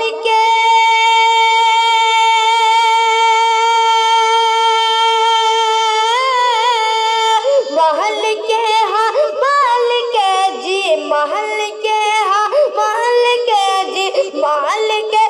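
A boy's voice singing a naat, an Urdu devotional song praising the Prophet. He holds one long high note for about seven seconds, then moves into quick, ornamented melodic phrases.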